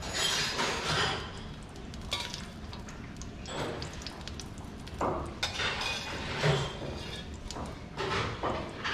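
A metal spoon clinking and knocking against a steel tin and a wide metal pan while coconut oil is spooned into the pan: irregular clinks and taps over a steady background hiss.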